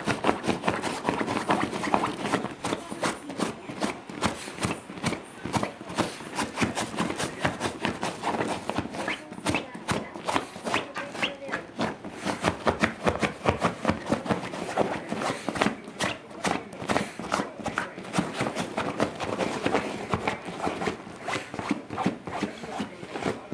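A basenji digging at a fabric pet bed with its front paws: fast, continuous scratching and rustling of cloth, several strokes a second.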